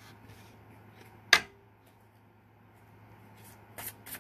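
Tarot cards being handled on a table: one sharp tap or snap of the deck about a second in, then a few light clicks near the end, over a low steady hum.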